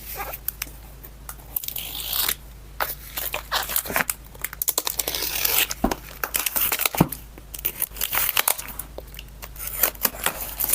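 Packaging being unwrapped by hand: irregular crinkling and tearing with scattered clicks, and a couple of light knocks about six and seven seconds in.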